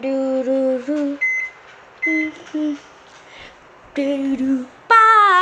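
A girl humming a wordless tune in short held notes, with a higher note sliding down near the end.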